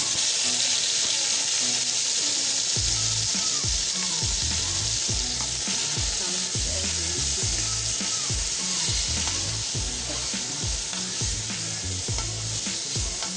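Chopped tomatoes, peppers and onions sizzling in hot groundnut oil just after going into the pot, stirred with a spatula. The sizzle starts suddenly and eases a little towards the end.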